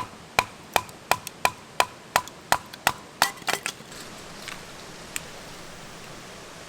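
A quick run of about ten sharp strikes of a tool, roughly three a second, each with a short ring, then a few closer knocks and two lone ticks before they stop around four seconds in. A steady rushing of river water runs beneath.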